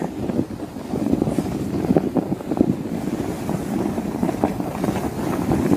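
A sled sliding down a packed-snow road: a steady scraping rumble full of rapid small crunches.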